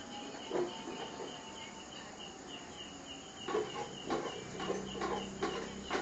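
A high, even chirping pulses about four times a second, like insects calling. Several soft, irregular knocks come in the second half, with a faint low hum near the end.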